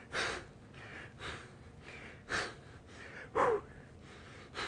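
A man breathing hard under exertion during bicycle crunches: sharp, noisy exhales about once a second, one of them with a short grunt.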